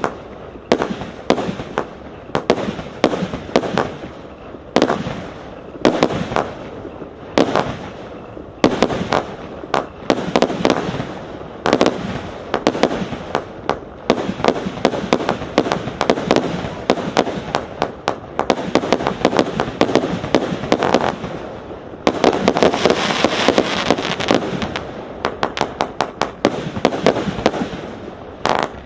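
Hallmark Annual Gala 224-shot compound firework cake firing: a long string of sharp shots as its tubes launch and burst, one after another. About two-thirds of the way through, the shots come much faster and louder in a dense volley.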